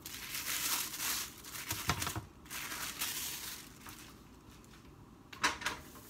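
Plastic sheets crinkling as they are peeled off a freshly pressed disc of corn masa on a metal tortilla press, in bursts, with a short knock about two seconds in and another near the end.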